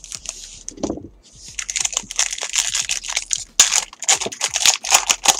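Foil wrapper of a baseball card pack being crinkled and torn open by hand: a few handling clicks, then from about a second and a half in a dense, crackly rustle of foil.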